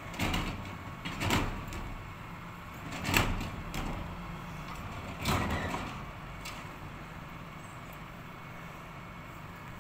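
Wheelie bin being emptied by hand into the rear hopper of a rubbish truck: four loud bangs and rattles over about five seconds as it is lifted, knocked against the hopper and let down, over the truck's steady engine hum.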